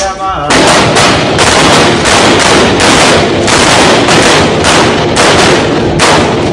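Many rifles firing at once from about half a second in: a long continuous volley of overlapping shots.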